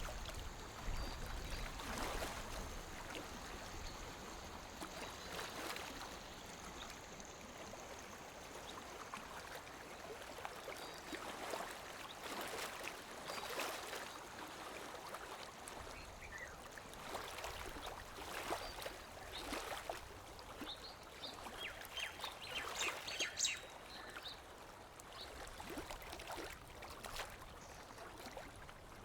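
Small waves lapping against a lake shore: soft, irregular splashes and slaps, one every second or so. A few short high chirps come through about three-quarters of the way in.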